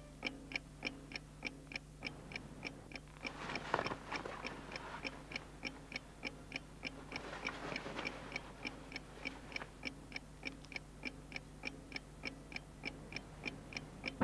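Clock ticking steadily, about four ticks a second, with soft rustling of bedclothes about four seconds in and again around eight seconds in.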